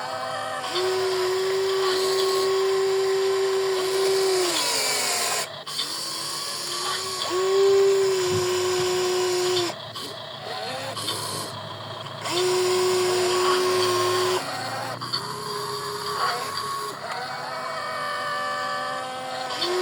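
Small electric gear motors of a radio-controlled toy construction vehicle whining in repeated runs of about two to four seconds. Each run starts and stops abruptly, holds a steady pitch, and drops in pitch as it winds down.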